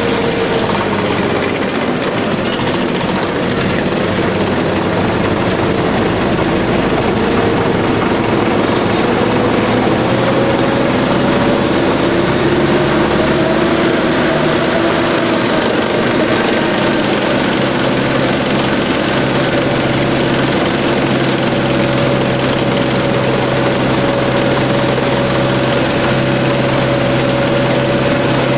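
Engine of a 1963-built tank running steadily as the tank drives, heard from on top of the hull. The engine note rises a little partway through and then holds level.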